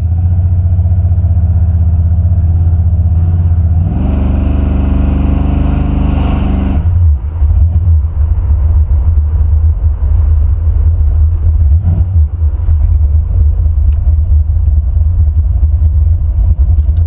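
Buick Stage-1 455 V8 running at a standstill, heard from inside the car: a heavy low rumble, with a higher engine note swelling for about three seconds starting about four seconds in, after which the rumble turns choppy and uneven. The Holley carburetor's four idle-mixture screws have been re-set, which the owner says has left the air-fuel mixture off.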